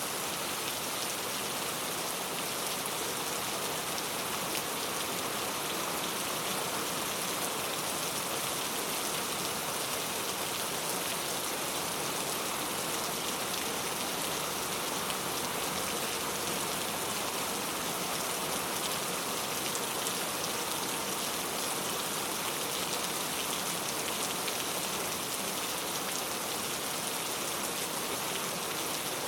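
Heavy rain falling steadily, a dense even hiss with fine pattering of drops on a surface.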